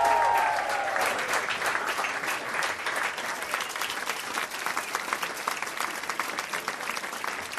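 Audience clapping: a dense, even patter of many hands. The last held notes of music die away in the first second.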